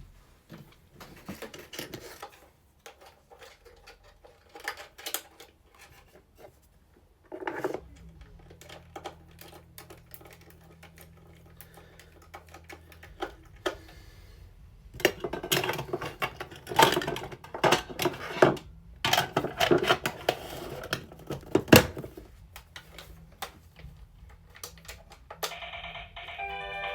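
Plastic clicks, taps and rattles from handling a toy action figure and fitting its batteries, with a dense run of clicking in the second half. An electronic tune starts near the end.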